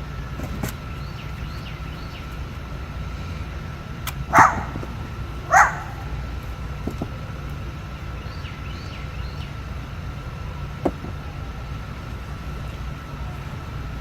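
A dog barks twice, a little over a second apart, over a steady low hum.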